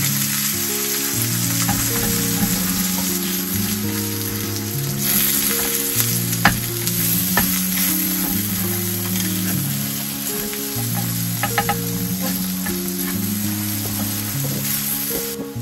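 Egg and sausage sizzling in a small grill pan over a gas stove, with a few light clicks of chopsticks against the pan as the egg is stirred and scrambled. Soft background music plays underneath, and the sizzle falls away near the end.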